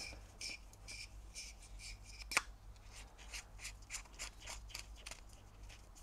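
Female XLR cable connector being assembled by hand: faint scraping clicks as the metal body and rear boot are handled and screwed together, with one sharper click a little over two seconds in.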